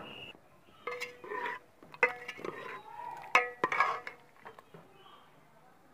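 A metal spoon stirring thick curry in a steel cooking pot, clinking and scraping against the pot's side a few times at uneven intervals, some strokes ringing briefly.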